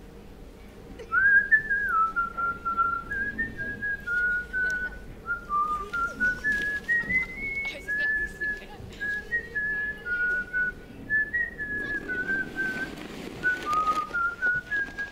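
A person whistling a simple tune, clear single notes stepping up and down, starting about a second in.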